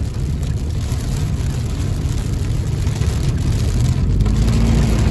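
Car driving on a rain-soaked road, heard from inside the cabin: steady tyre and road noise with rain hitting the car. It gets a little louder about four seconds in.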